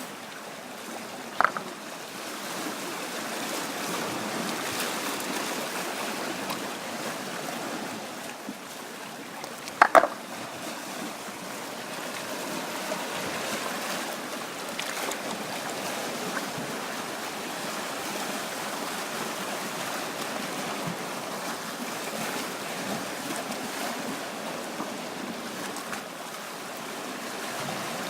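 Black Sea waves washing on the shore, a steady rushing that swells and eases slowly. Two short sharp knocks cut through, one about a second and a half in and a louder one about ten seconds in.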